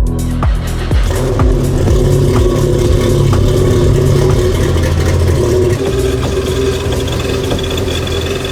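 Engine running at a steady speed.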